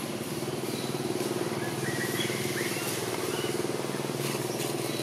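Engine running steadily: a low hum with a fast, even pulse. A few faint high chirps come about two seconds in.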